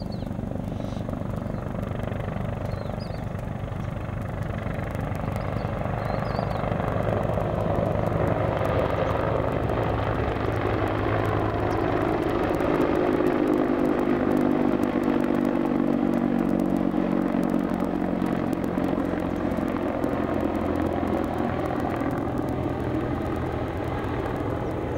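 CH-53 heavy-lift military helicopter flying past: steady rotor beat and engine noise that grows louder to a peak about halfway through as it passes close, then eases off as it flies away.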